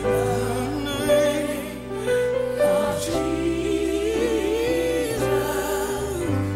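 Gospel music: a Korg Kronos keyboard holding sustained chords while a singing voice glides and wavers over them.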